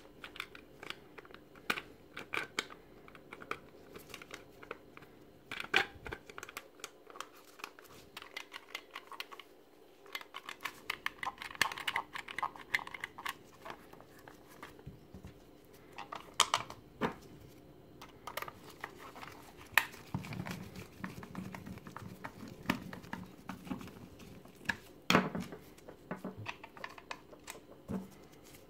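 Irregular clicks and taps of a cordless-drill battery pack's plastic case being turned over and handled in gloved hands, with a few louder knocks and some rustling.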